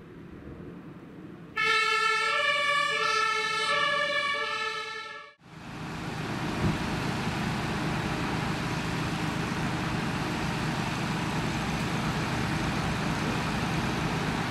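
A German two-tone emergency siren (Martinshorn) on a fire department ambulance switches on suddenly, alternating between two pitches as the ambulance moves off on a call. It cuts off abruptly after a few seconds, and a steady rushing noise follows.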